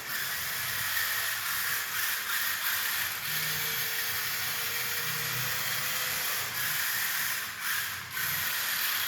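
Remote-control car's small electric motor and gears whirring steadily as its wheels spin and slide while drifting.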